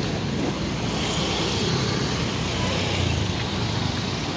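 Motor scooters riding past close by, their small engines running steadily over a constant hum of street traffic.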